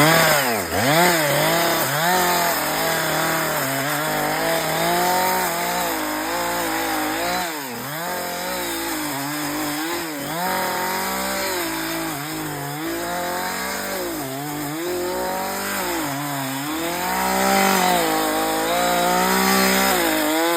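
Chainsaw running and cutting wood, its engine pitch rising and falling over and over as it is throttled up and bogs down in the cut.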